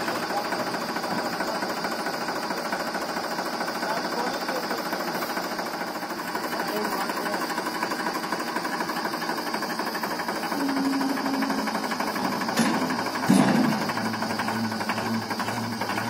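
Powertrac 434 tractor's diesel engine running steadily, with two sharp knocks less than a second apart about three-quarters of the way through.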